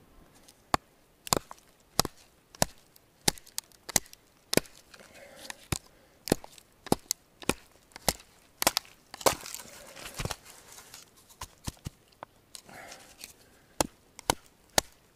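A knife being batoned through a short upright log: its spine is struck again and again, driving the blade down to split the wood, a sharp woody knock roughly three times every two seconds, with a brief pause near the end.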